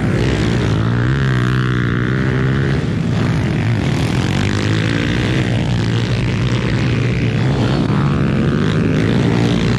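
Pit bike engine running hard under racing throttle, its revs rising and falling continuously through the turns and jumps of a dirt track.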